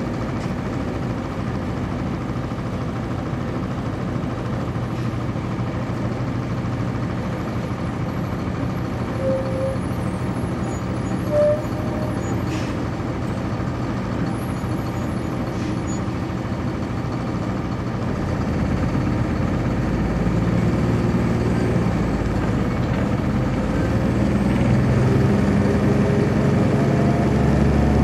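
1999 NovaBus RTS transit bus with a Cummins ISC inline-six diesel, heard from on board. The engine idles steadily, with two short high chirps near the middle. About 18 seconds in it grows louder as the bus accelerates away, and its pitch climbs steadily.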